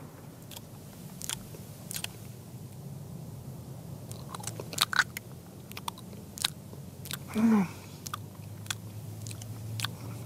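Eating cream cake with a fork: wet chewing and smacking mouth sounds with scattered sharp clicks. A short murmur from a voice comes about seven and a half seconds in.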